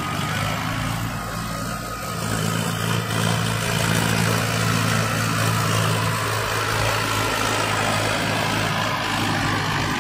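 Mahindra Arjun 555 tractor's four-cylinder diesel engine running steadily under load as it hauls a trolley heaped with soil. The engine note grows louder about two seconds in as the tractor comes close.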